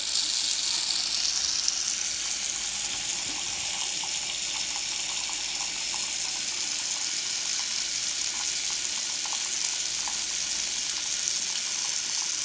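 Water running steadily from a Delta two-handle faucet into the sink, starting and stopping abruptly.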